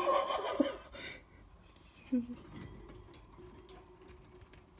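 A pet rat climbing a white wire cage and grabbing at a brush poked through the bars: a burst of rattling on the wire in the first second, then faint scattered ticks on the bars.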